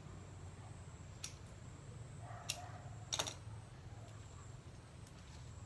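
A few small sharp clicks and snaps: one about a second in, another near the middle and a short cluster just after, over a faint steady low hum. They come from leafy green stems being snapped and stripped by hand.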